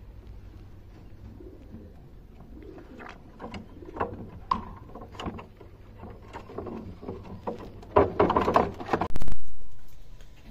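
Homing pigeons cooing, with scattered small clicks and knocks. Near the end comes a loud, rapid flurry of rustling that lasts about a second and a half and then fades.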